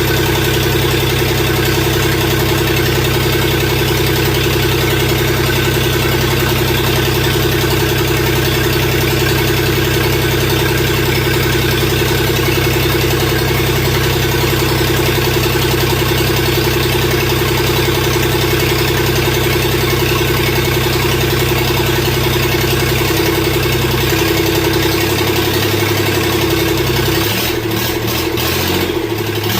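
Freshly rebuilt diesel engine of a Mustang skid steer running at a steady idle. About 24 seconds in its note shifts and turns uneven.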